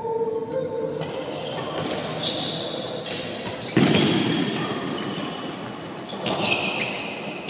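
Badminton doubles rally in a large hall: rackets striking the shuttlecock and players' footwork on the court, over steady spectator noise. The loudest strike comes suddenly about four seconds in.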